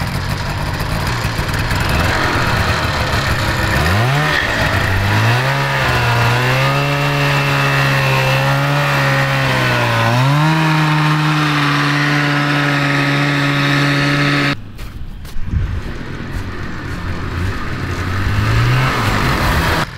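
Kawasaki 440 two-stroke snowmobile engine in a go kart, revving up about four seconds in and holding high revs with small rises and falls in pitch. The sound cuts off suddenly near three quarters of the way through, and a quieter run of the engine follows, rising again near the end. The kart is short of power, which the owners put down to a worn, slipping drive belt.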